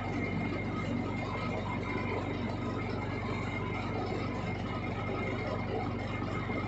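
Centre lathe running with its four-jaw chuck spinning while a facing cut is fed across the end of a metal workpiece: a steady motor and gear hum with a thin high tone above it.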